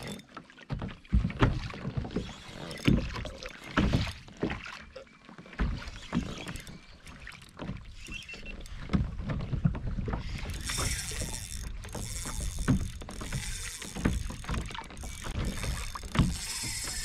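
Water slapping and lapping against a plastic fishing kayak's hull, with scattered knocks and wind rumbling on the microphone, while a hooked jack is fought on a spinning rod. From about ten seconds in there is a high whir from the spinning reel, which fades and comes back near the end.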